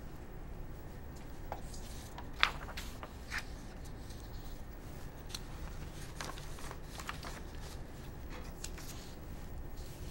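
Quiet room tone with a low steady hum and scattered small clicks and rustles, the loudest a single sharp click about two and a half seconds in.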